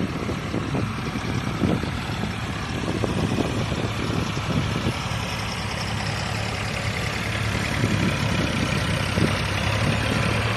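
Eicher tractor's three-cylinder diesel engine running steadily under load, pulling an 8-foot land-leveller scraper filled with soil. It grows a little louder near the end as the tractor comes closer.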